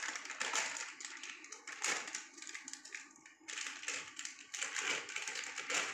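Crinkling and crackling of a small plastic snack packet being torn open and fingered through, a dense run of fine crackles with a short lull about three seconds in.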